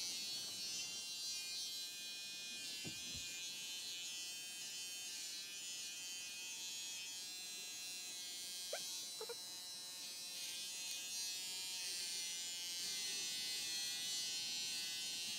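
Corded electric hair clippers buzzing steadily as they cut short hair close to the scalp.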